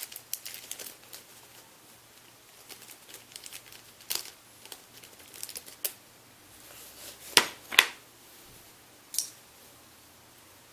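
Light scattered clicks and taps of a small tool and metal parts being handled while a set screw is driven into an AR-15 drop-in trigger housing, with two sharper clicks about seven and a half seconds in and another near nine seconds.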